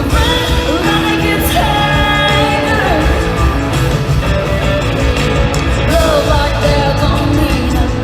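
A live band plays a country-rock song with a woman singing the lead, over driving drums and bass.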